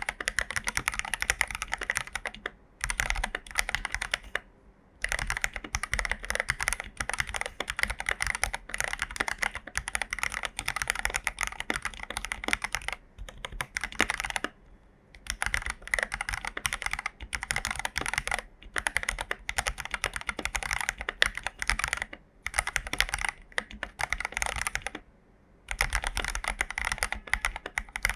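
Fast typing on an AKKO 5075B mechanical keyboard with lubed Jelly Black linear switches: a dense run of key clacks, broken by a few short pauses of about a second.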